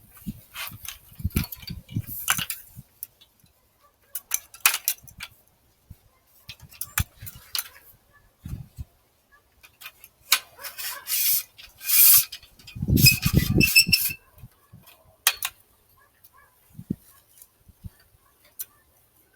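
A laser-level tripod stand being unpacked and set up by hand: irregular clicks, clinks and rattles of its legs and fittings, with a few longer rustling, scraping stretches.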